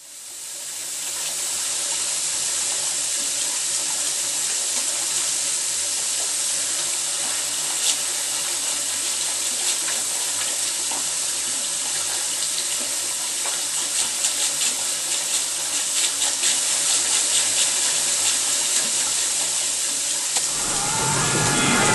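Tap water running steadily into a bathtub, with more splashing in the second half. A louder, different sound cuts in near the end.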